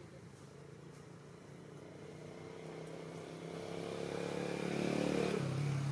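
Engine of a passing motor vehicle, growing louder to a peak about five seconds in and starting to fade near the end.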